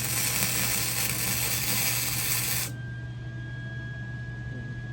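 Electric arc welding on the steel of a smoker, the arc crackling and hissing steadily, then cutting off suddenly about two and a half seconds in, leaving a faint steady high tone.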